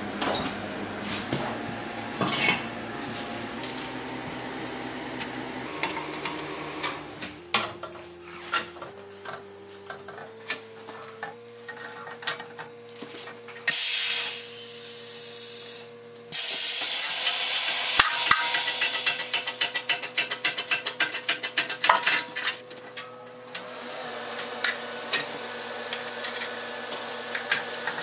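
Hand tools working on metal car suspension parts: scattered metal clinks and knocks, a short loud hiss about halfway through, then several seconds of quick, regular clicking over a louder noise.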